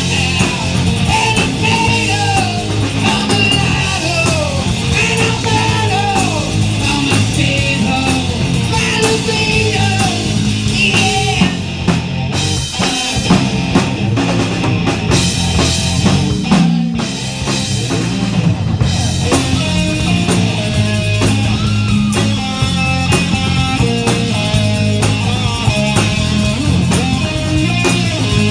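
Live rock band playing loud: a man singing into a microphone over electric guitar, drum kit and keyboard, with the singing mostly in the first half.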